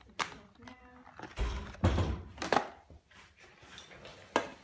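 Handling noise from a bicycle hub being picked up and turned by hand: a click, then a cluster of knocks and rustling about a second and a half in, and a sharp click near the end.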